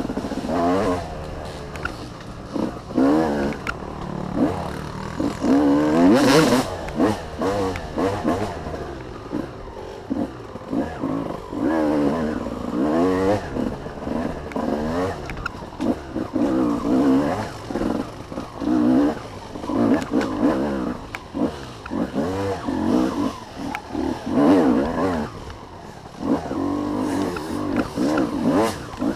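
Dirt bike engine revving up and down repeatedly as the throttle is opened and closed on a wooded trail, heard from a helmet-mounted camera.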